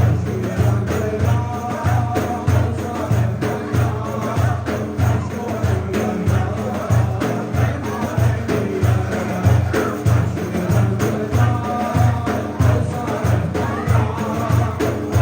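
Turkish Sufi hymn (ilahi) music: singing over a frame drum keeping a steady beat of about two strokes a second.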